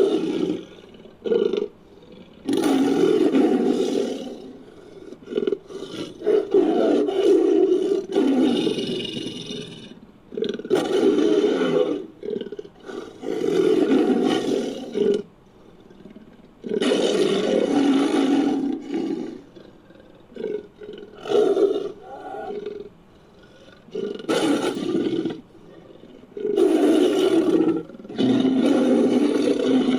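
Made-up roars and growls for the extinct sabre-toothed cat Barbourofelis fricki, built from edited big-cat recordings: a series of loud roars, each one to three seconds long, with short pauses between them.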